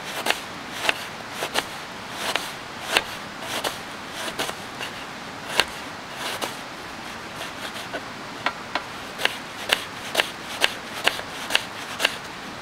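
Kitchen knife chopping a red onion on a plastic cutting board: sharp taps of the blade striking the board, irregular at first, then faster and more even in the second half.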